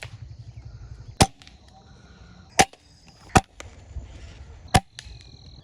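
Crosman springer air rifle firing: four sharp, separate shots spaced irregularly about a second apart.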